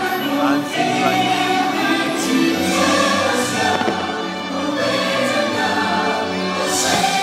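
Fireworks show soundtrack: a choir singing long held notes over music.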